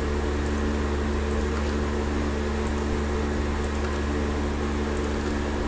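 Steady electrical hum: a low drone with several steady higher tones over a hiss, with a few faint high ticks.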